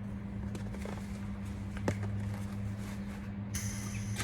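Steady low electrical hum with a few faint clicks, then about three and a half seconds in a MIG welder strikes its arc and starts a high, crackling hiss, laying a tack weld on car body sheet metal.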